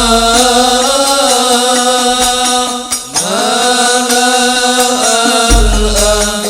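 Arabic devotional chanting of sholawat, with long held melodic lines and a rising slide about three seconds in. Under it a deep bass plays for the first second or so and comes back near the end.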